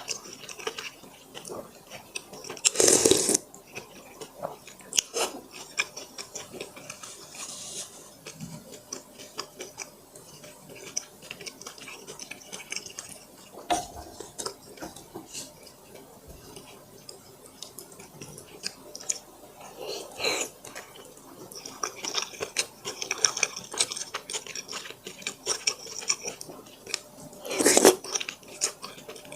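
Close-up chewing and wet mouth sounds of someone eating dumplings: a steady run of small clicks and smacks, with two louder, longer sounds about three seconds in and near the end.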